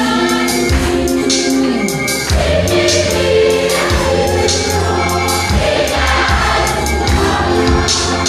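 A large choir singing a Kirundi Catholic hymn in full voice over instrumental accompaniment, with a sustained bass and regular percussive strokes.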